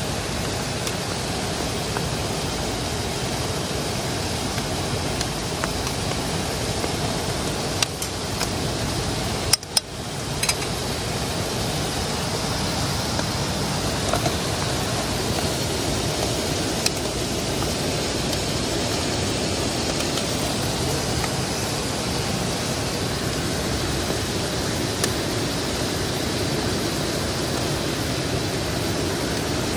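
Steady rushing noise, with a few light knocks and clicks around eight to ten seconds in.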